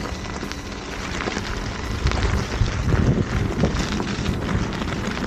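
Wind rushing over the microphone and the knobby tyre of an electric unicycle rolling over a stony dirt trail, with irregular low bumps and knocks from the rough ground.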